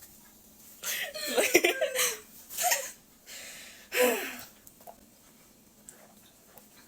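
Short bursts of giggling and laughter about a second in and again about four seconds in, then quiet.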